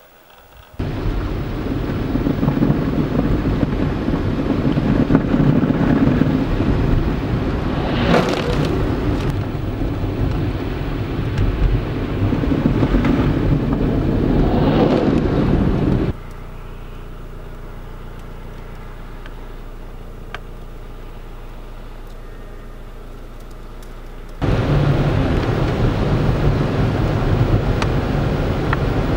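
Road and engine noise from a vehicle driving on a snow-covered highway, a loud steady rush with a low engine drone. It swells twice as large trucks pass close by, the second an oncoming snowplow. In the middle it drops to a quieter, steady engine hum for several seconds before the loud road rush returns.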